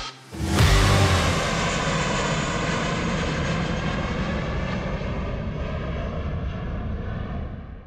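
Airbus A321LR airliner's jet engines at takeoff power: a steady rushing noise with faint whining tones, which starts after a brief gap and slowly weakens before fading out at the end.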